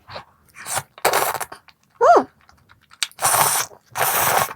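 Close-miked eating of cheese tteokbokki: several short, loud noisy bursts of mouth sounds as she eats, with a short hum of pleasure that rises and falls in pitch about two seconds in.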